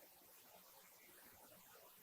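Near silence: faint room tone of a large chamber.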